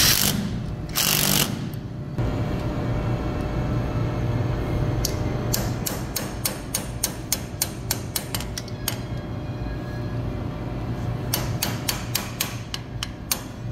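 Cordless drill running in two short bursts near the start and about a second in. Then a series of sharp metallic clicks as an adjustable wrench turns a screw extractor biting into a screw held in a steel vise, over a steady low hum.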